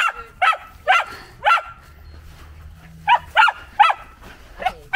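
Samoyed puppy barking in excited play: short, sharp barks, four in a quick run, a pause of about a second and a half, then four more.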